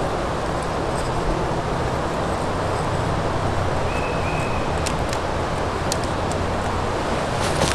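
Steady rushing outdoor background noise, with a few light clicks from cord and a wooden toggle being handled between about five and six and a half seconds in, and a brief high note just after four seconds.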